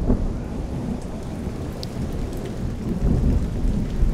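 Steady rain with low thunder.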